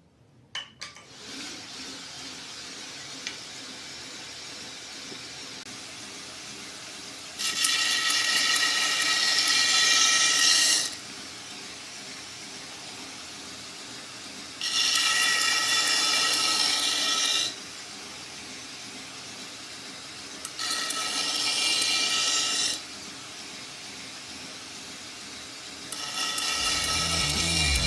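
2x72 belt grinder with a 60-grit aluminum oxide belt running over a 12-inch contact wheel. Four grinding passes of a few seconds each, as a handle scale is pressed to the belt to hollow-grind a chamfer, each add a loud, high-pitched grinding hiss over the steady running of the belt.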